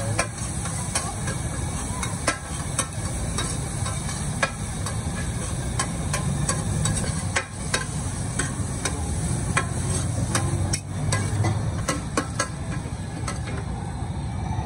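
Pad thai noodles sizzling on a large flat pan while a metal spatula and ladle stir them, scraping and clinking against the pan in irregular strokes over a steady frying hiss.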